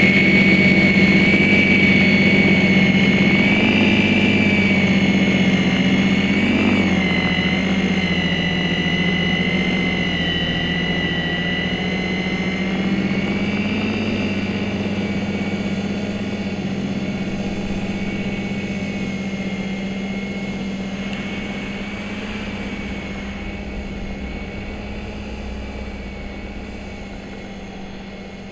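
Snow Joe corded electric snow thrower running steadily while throwing snow, its motor giving a high whine over a low hum. It fades gradually as the machine moves farther away.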